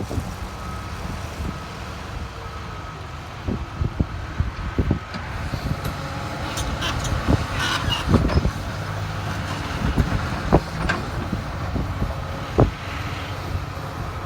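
Komatsu excavator's diesel engine running steadily, with a series of sharp metallic clanks and knocks and a brief scraping squeal partway through, typical of the bucket and machine working while loading a truck.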